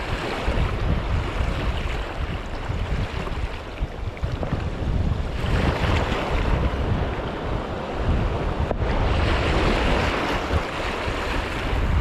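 Small sea waves washing over low shoreline rocks, swelling and easing in three washes, with wind rumbling on the microphone.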